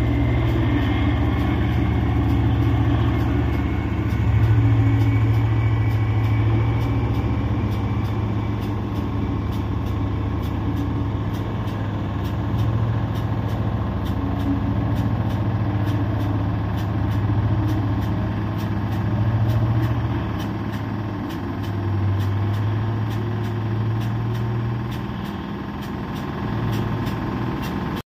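Loaded mining haul truck driving past, its large diesel engine running as a steady low drone that swells and eases slightly.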